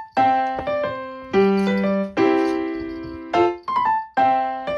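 Background piano music: gentle notes and chords struck about once or twice a second, each ringing and fading before the next.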